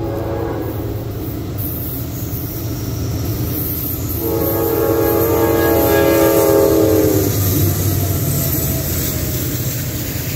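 Norfolk Southern diesel freight locomotive's air horn sounding one continuous blast of about three seconds, starting about four seconds in. Beneath it runs the steady rumble of the lead locomotives and the wheels of the passing double-stack intermodal train.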